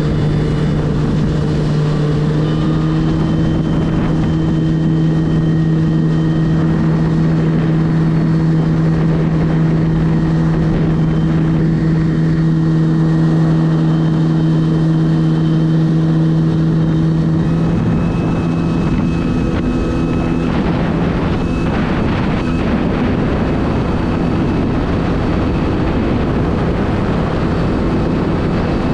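Jet ski engine running at steady cruising speed: a loud, even drone over a rushing noise. About 18 seconds in, the engine note shifts and weakens.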